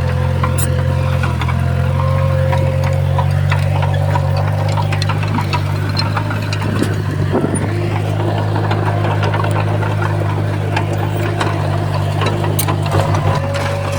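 Crawler bulldozer's diesel engine running steadily under a constant higher whine, with scattered sharp clicks and knocks over it.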